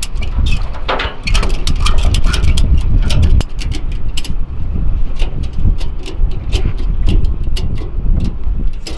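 Ratchet tie-down strap being cranked tight, its mechanism clicking sharply a few times a second, over a heavy low rumble.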